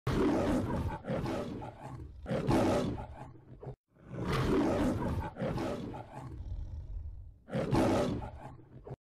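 A young child roaring like the MGM lion: a string of five or so roars, each about a second long, with short pauses between.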